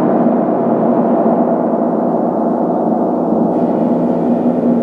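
Large suspended gong kept ringing by a soft mallet moving over its face: a sustained, dense wash of many overlapping tones that stays at an even loudness.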